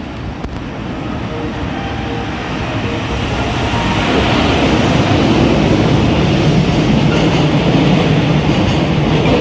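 EF210 electric locomotive hauling a freight train through a station without stopping. The rumble of the train grows louder over the first four seconds, then holds steady as the train runs by.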